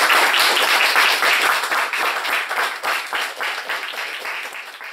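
Audience applauding, loudest at the start and gradually dying away, with single claps standing out more as it thins.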